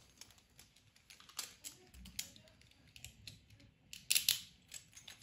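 Scattered small plastic clicks and taps from Beyblade tops and their launchers being handled, with two sharper clicks close together about four seconds in.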